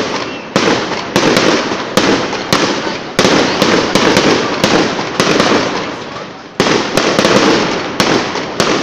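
Aerial firework shells bursting in a quick series of sharp bangs, about two a second, each trailing off in crackle and echo, with a short lull just past the middle.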